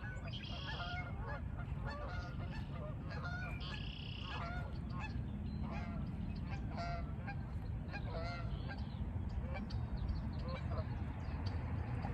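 Geese honking over and over, many short calls throughout, over a steady low rumble.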